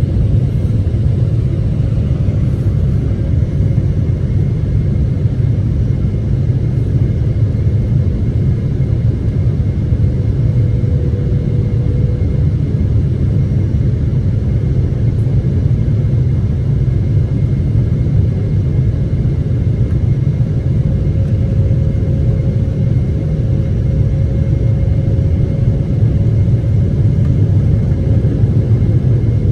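Steady low rumble of a Boeing 777-300ER and its GE90 engines, with a faint engine tone that rises slightly and falls back near the end.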